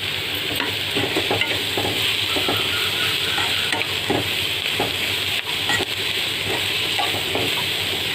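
A spoon stirring vegetables frying in oil in a pan, with a steady sizzle and irregular scrapes and knocks of the spoon against the pan as spices are mixed into the stir-fried filling.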